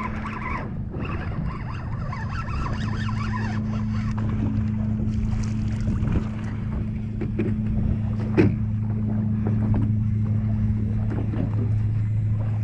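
Boat's engine running at a steady low hum, with wind and water noise around it and a sharp knock about eight seconds in.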